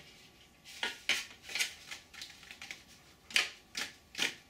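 Cast polyurethane foam model-aircraft wings being handled and flexed, giving a series of short, scratchy creaks and rubs, about seven in all.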